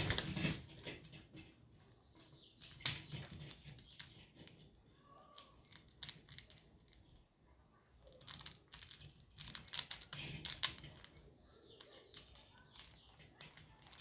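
African grey parrot climbing on its hanging swing, beak and claws knocking on the metal chains and wooden pieces: irregular clicks and short light rattles, in bunches at the start, about three seconds in, and around ten seconds in.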